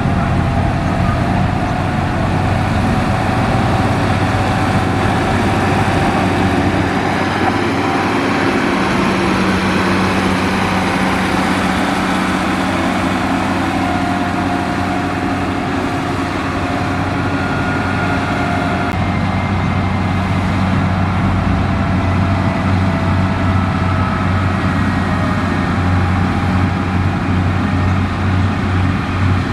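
Diesel engine of heavy road-construction machinery running steadily under work, its pitch shifting a little now and then.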